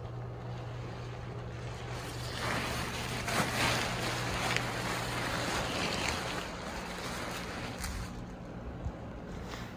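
Deflated nylon fabric of an airblown inflatable rustling and crinkling as it is handled and spread out, louder for a few seconds in the middle, over a steady low hum.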